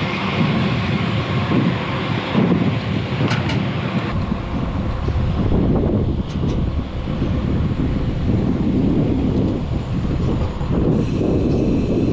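Wind rushing over the microphone with road noise from riding a bicycle along a road: a loud, continuous rumble.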